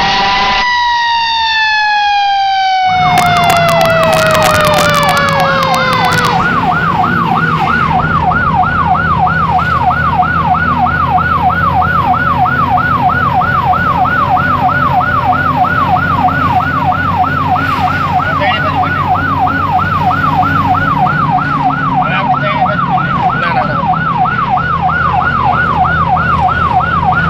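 A slow falling siren tone opens. From about three seconds in, a fire engine's electronic siren wails rapidly up and down in an even, unbroken cycle over the truck's engine drone.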